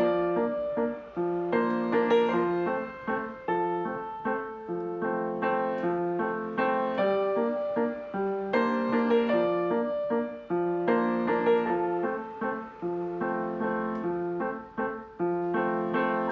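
Background piano music: a steady melody of struck notes over chords, each note ringing and fading.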